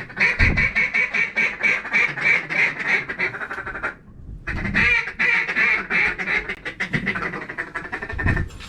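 Rapid duck quacking: a fast string of short quacks, several a second, that breaks off briefly about four seconds in and then resumes. Wind buffets the microphone with low rumbles underneath.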